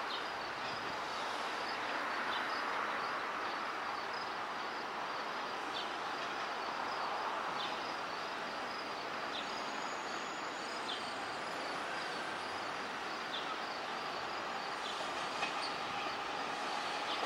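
Toronto subway train (TTC T1 cars) running toward the listener on open track: a steady rumble of wheels on rail, with faint clicks every second or two.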